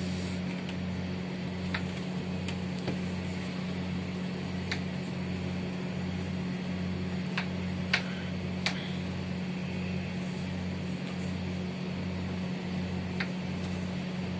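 A steady low hum with a slight slow pulse, with several short, light taps and clicks from hands handling food on the tabletop.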